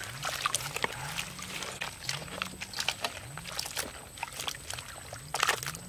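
Wet squelching and sloshing as hands knead and scrub raw beef intestines with green leaves in a basin of water. Under it, a low rising tone repeats every half second or so.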